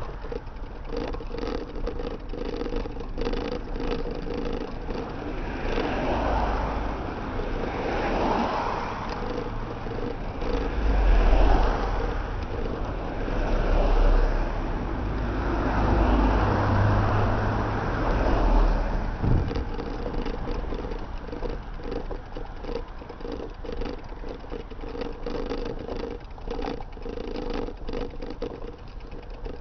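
Cars passing one after another, with louder swells of engine and tyre noise through the middle, over steady road noise and rattle from riding along.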